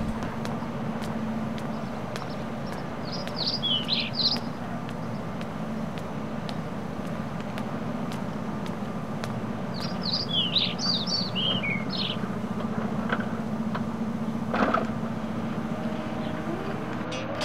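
Birds chirping in two short runs of quick high notes that fall in pitch, about three seconds in and again about ten seconds in, over a steady low hum. A single sharp knock sounds near the end.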